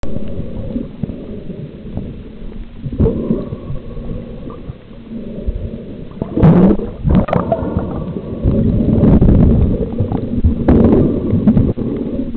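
Muffled underwater noise picked up by a camera held below the surface while snorkelling: a low rumbling and gurgling of moving water, with a few sudden louder surges about halfway through and again near the end.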